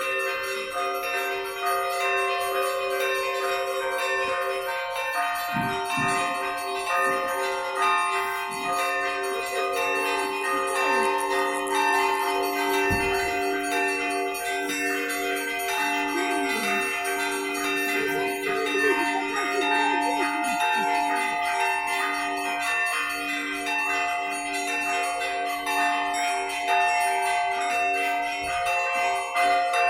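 Russian Orthodox church bells ringing a continuous peal, several bells of different pitches sounding together and overlapping without a break.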